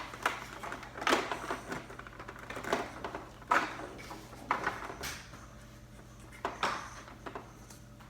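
Plastic Nerf blaster being loaded with darts: a handful of irregular sharp clicks and knocks with lighter rattling in between.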